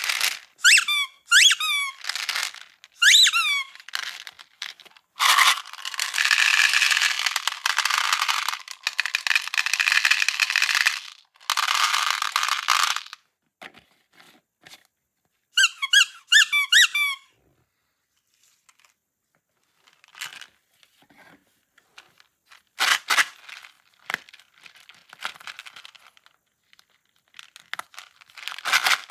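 Quick runs of high squeaks that slide up and down in pitch. Between them come stretches of steady pouring hiss and scattered clicks and crinkles.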